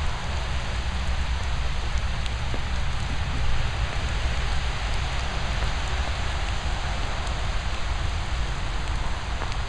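Steady rain falling, an even hiss, with a low rumble underneath.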